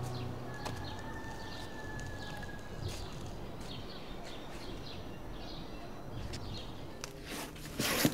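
Outdoor ambience: small birds chirping over a steady low rumble. Near the end comes a brief, louder scuffing noise.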